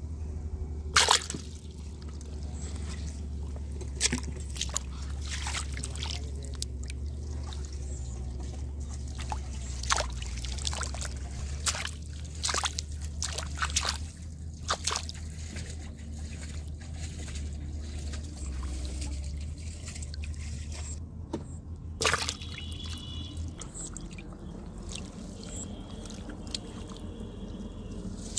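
Water splashing and sloshing in a shallow flooded field as a hand and a climbing perch move through it, with a series of sharp splashes. The loudest come about a second in and again about 22 seconds in, over a low steady rumble that stops near the end.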